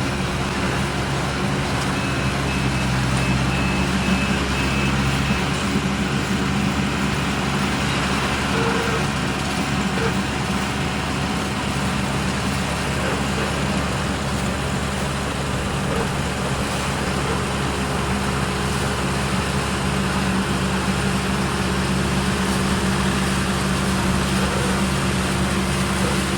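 Yanmar GC333 combine harvester running steadily, its engine and machinery making a constant low hum under a broad mechanical clatter, with a faint thin high whine for a few seconds near the start.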